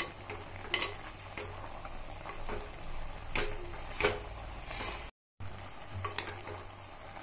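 A steel spoon stirring chicken pieces in an earthenware clay pot, scraping and knocking against the pot several times, over a faint sizzle of the meat cooking in coconut oil. The sound cuts out briefly about five seconds in.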